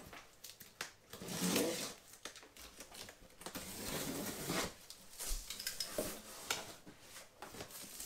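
Utility knife slicing through packing tape on a large cardboard box in several strokes, then the cardboard flaps being pulled open and rubbing together near the end.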